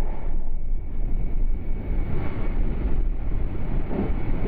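Running noise heard inside the passenger cabin of a moving Meitetsu electric train: a steady rumble from the wheels and running gear, with a faint thin tone held above it.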